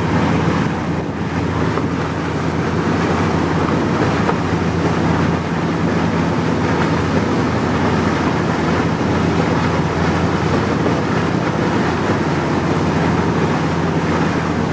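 Tour boat's engine running with a steady low drone, under a constant rush of wind and water.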